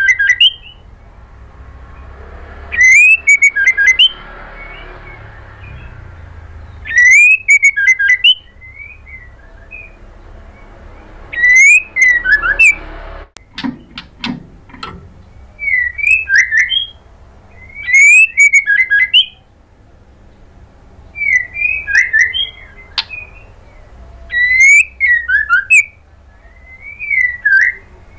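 White-rumped shama calling: short loud phrases of rising and falling whistled notes with quick sharp high notes, repeated about every three to four seconds, eight phrases in all.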